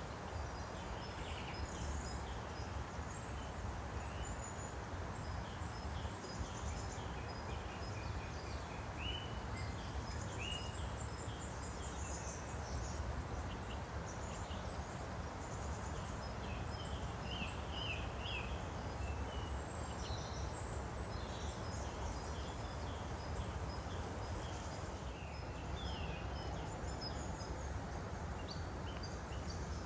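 Woodland stream flowing steadily, with songbirds calling and singing over it: many short chirps and a repeated high trill.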